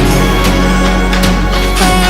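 Electronic-style background music: held melodic notes over a steady bass with a regular beat.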